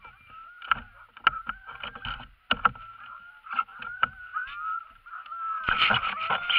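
Harnessed sled dogs (huskies) whining and yelping, impatient to start running, among scattered knocks. The yelping grows louder near the end.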